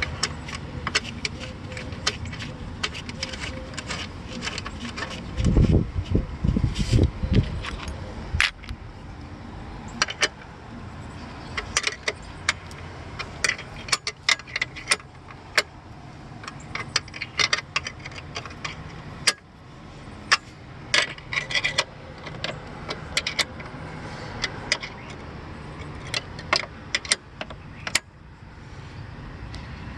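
Small metal clicks and clinks come irregularly throughout, from hand tools working the bolts on the truck's engine computer mount. A burst of heavier low knocks comes about six seconds in and is the loudest part.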